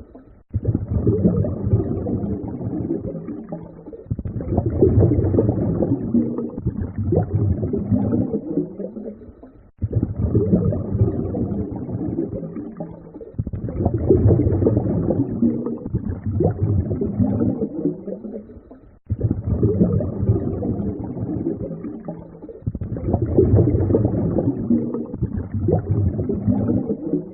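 A low rumbling noise that swells and fades in a loop, cutting out briefly and starting over about every nine seconds.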